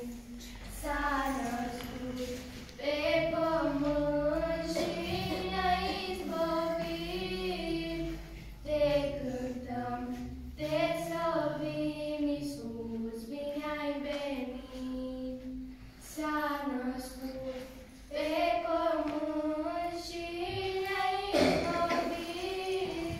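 Group of children singing a Romanian Christmas carol (colindă) together, in sung phrases of a few seconds with short breaks for breath between them.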